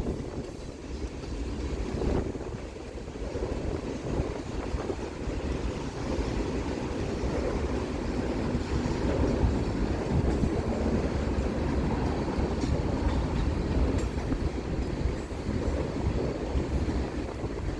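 Kansas City Southern freight train's cars rolling past: a steady rumble of steel wheels on the rails.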